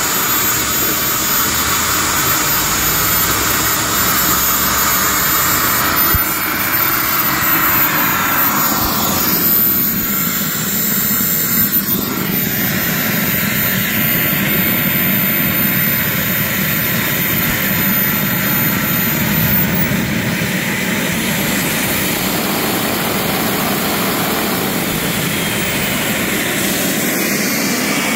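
KingTech K45G4+ model jet turbine running on a ground test run: a loud, steady turbine whine over the rush of the exhaust. Some of its high tones drop out about two-thirds of the way through.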